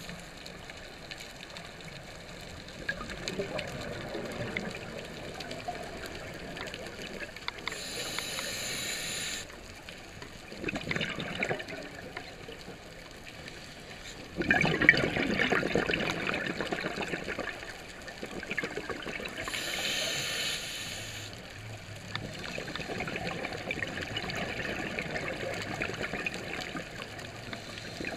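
Scuba regulator breathing heard underwater: two hissing inhales, about 8 and 20 seconds in, with gurgling exhaust bubbles between them, the loudest burst of bubbles starting about 15 seconds in.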